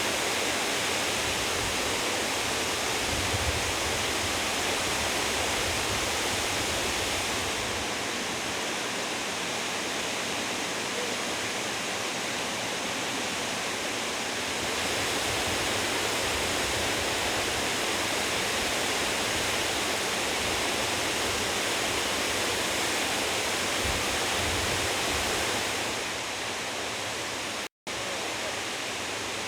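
Onogawa Fudo Falls, a waterfall dropping more than 20 m in a single plunge: a steady, dense rush of falling water. The level shifts slightly a few times, and the sound cuts out for an instant near the end.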